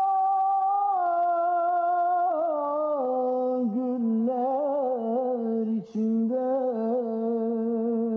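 A man singing a Turkish folk song (türkü) unaccompanied, in a high voice. He holds one long steady note, then steps lower through wavering, ornamented turns, with a short break for breath about six seconds in.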